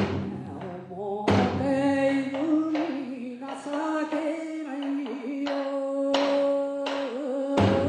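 Bon-odori folk song: one singer holding long, wavering notes, with a drum struck a few times: once at the start, about a second in, about six seconds in and near the end.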